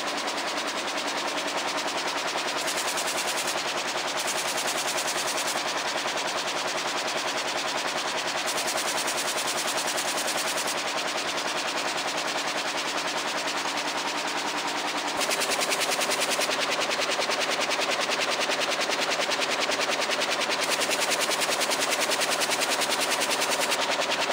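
Air jet loom weaving denim at full speed: a fast, even clatter of the reed beating up each weft pick over a steady high hiss. It gets slightly louder about fifteen seconds in.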